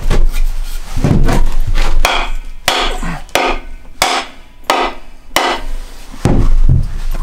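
Wooden axe handle rapped down repeatedly with the steel axe head seated on its top end, so that the head's inertia drives the handle into the eye to test the fit. About ten wooden knocks, roughly one every two-thirds of a second.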